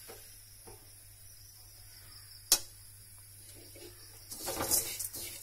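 Metal spoon stirring and scraping rice grains in a wide metal pan, clattering in irregular strokes from about four seconds in. Before that, only low background with one sharp click about halfway through.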